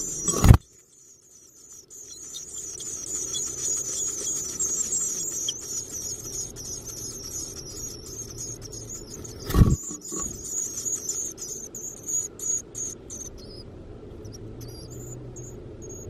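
Black-capped chickadee nestlings begging: a dense, high-pitched, wavering chatter of calls that thins to a few scattered short notes near the end. Two loud thumps break in, one right at the start and one about ten seconds in.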